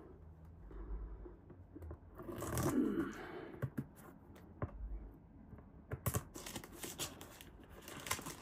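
Plastic shipping bag being cut and torn open and handled, crinkling. There is a longer rustling tear about two to three seconds in, then a run of sharp little clicks and crackles near the end.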